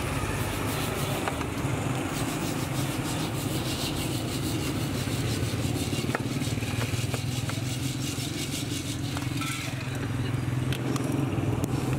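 A metal scraper and a perforated sieve scrape and rake through hot roasting sand in a metal pan, the sand rasping in quick repeated strokes as the roasted chickpeas are sifted out. The scraping thins out near the end. A steady low rumble of street traffic runs underneath.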